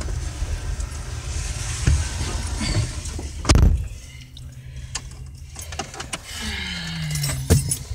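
Low rumble inside a pickup truck's cab, broken about three and a half seconds in by one heavy thump. After the thump it is quieter, with a few small clicks.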